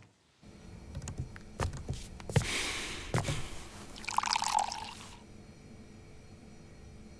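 A few light knocks, then tea poured from a pot into a cup, stopping about five seconds in.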